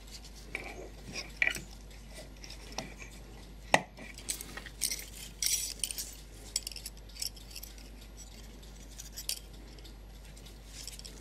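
Brass clock movement parts being handled: scattered light clicks and small metallic clinks, with a sharper knock about four seconds in and a run of quick clinks just after.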